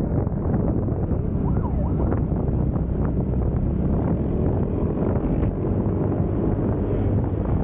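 Yamaha XMAX 300 scooter under way, its engine running under a steady rush of wind on the microphone.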